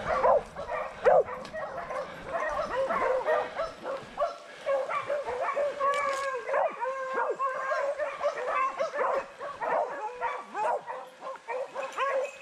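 A pack of beagles baying in chorus, many overlapping high yelping and howling voices without a break, as the hounds hold a group of wild boar at bay.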